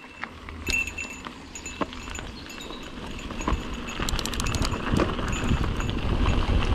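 Mountain bike rolling fast down a dirt and gravel track: tyres crunching, with rattles and clicks as the bike bounces over bumps. A low wind rumble and hiss build from about halfway as speed picks up.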